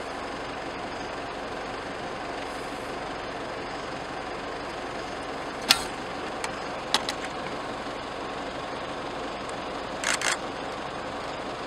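Steady running of an idling vehicle engine, with a few sharp knocks: one about halfway in, another a second later, and a quick double knock near the end.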